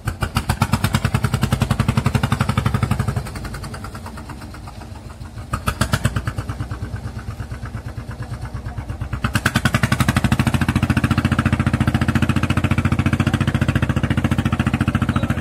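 Fishing boat's engine chugging with a fast, even beat as the boat gets under way, its revs picking up, easing off about three seconds in and building again around nine seconds in.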